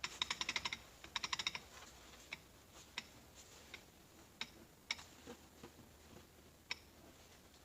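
Metal clutch parts of a 46RE automatic transmission clicking as they are turned and checked by hand. Two quick runs of rattling clicks, then scattered single clicks.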